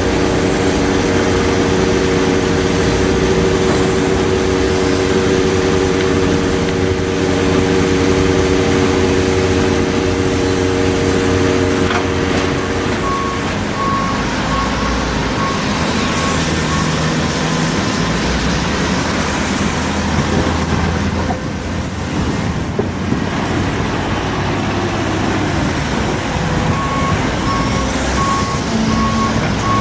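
Doosan excavator's diesel engine running steadily, with a steady whine that stops about 13 seconds in. About halfway through, a travel alarm starts beeping about twice a second for a few seconds, then starts again near the end.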